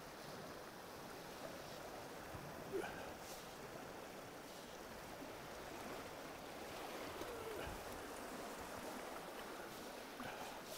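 Steady rush of the Upper Columbia River's current flowing past the shore, with a single short knock about three seconds in.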